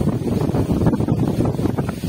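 Wind buffeting the microphone: a loud, fluctuating low rumble.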